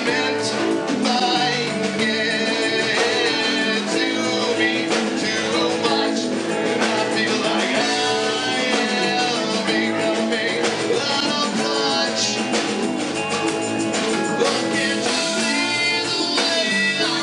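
Live band playing in full: drum kit, electric guitar and keyboard, with a singer's voice over the top. The drums keep a steady beat throughout.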